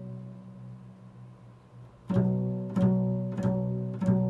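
Double bass plucked pizzicato, repeating the interval of a fifth. A ringing note dies away over the first two seconds, then four plucked notes follow about two-thirds of a second apart, each ringing and fading.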